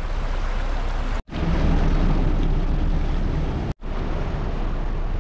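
A steady rush of wind and sea noise, cut off suddenly twice by brief drops to silence.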